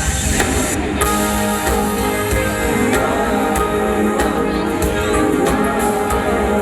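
Loud pop music played over a stage sound system: guitar over bass and a steady drum beat, with no singing.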